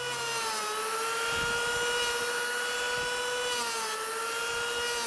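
Electric DeWalt power planer running steadily while planing a maple leg into a taper: a high motor whine over a hiss, its pitch dipping slightly twice under load.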